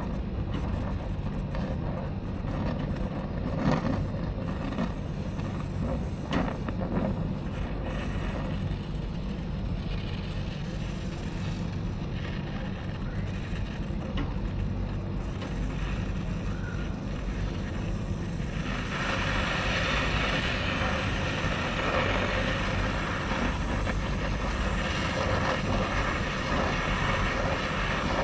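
Brazing torch flame hissing steadily as the compressor's copper suction line is heated for brazing; about two-thirds of the way in the hiss grows louder and brighter.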